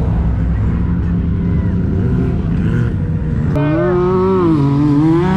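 Side-by-side UTV engines running, with one close by revving hard about three and a half seconds in, its pitch dipping and then climbing again.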